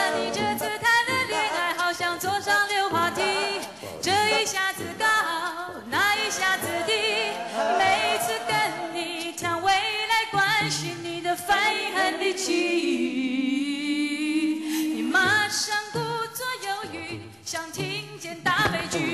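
A female lead singer and a group of backing singers singing a Mandarin pop song live, with a long held low note about two-thirds of the way through.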